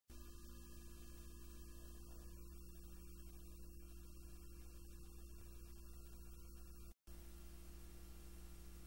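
Faint steady mains hum over a low hiss, cutting out for a moment about seven seconds in and then resuming.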